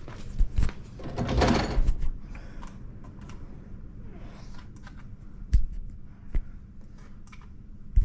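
Hard objects being handled: a few sharp knocks and thunks, with a second or so of rustling and scraping about a second and a half in.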